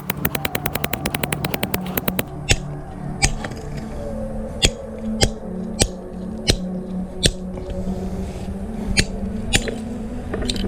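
Background music: a quick drum roll, then a steady beat of sharp hits over sustained low notes.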